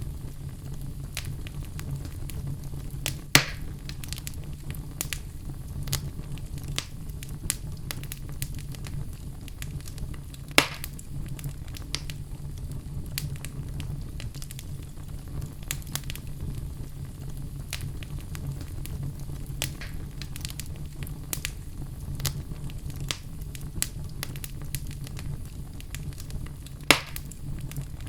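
Logs burning in a fireplace: a steady low rumble under frequent small crackles, with three sharper, louder pops about three seconds in, about ten seconds in, and near the end.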